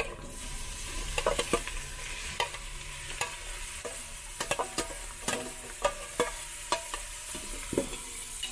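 Chopped beef innards sizzling in hot oil in a pan, being sautéed and stirred, with irregular scrapes and knocks of the utensil against the pan over the steady sizzle.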